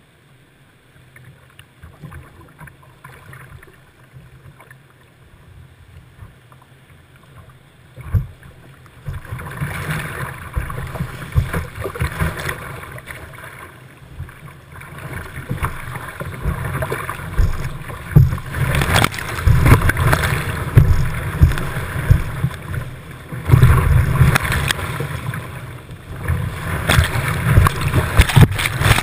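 Whitewater kayak running a river: faint paddle strokes and water lapping at the hull at first, then about nine seconds in the rush of rapids takes over. The water grows louder, with splashes breaking over the kayak's deck, and is loudest in the last few seconds.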